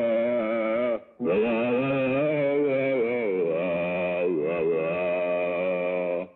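A cartoon walrus sings in a deep, wavering voice. There are two long held phrases with a short break about a second in, and the singing cuts off just before the end.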